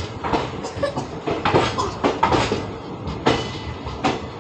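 Passenger train coach rolling slowly into a station, heard from its open doorway: a steady rumble broken by irregular clanks and knocks from the running gear and couplings as it pulls in to stop.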